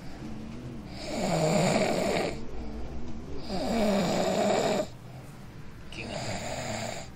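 A man snoring in deep sleep: three long, rattling snores about two and a half seconds apart.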